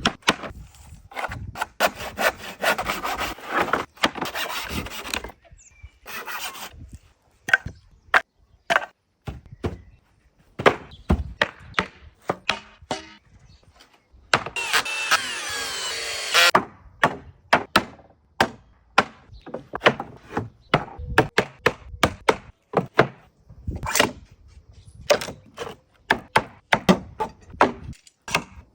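Pallet wood being cut and worked: stretches of sawing near the start and again about halfway through, with many sharp wooden knocks and clacks in between.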